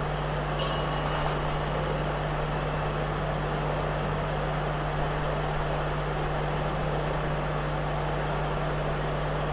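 Steady room background noise: an even hiss with a constant low hum, and a brief click about half a second in.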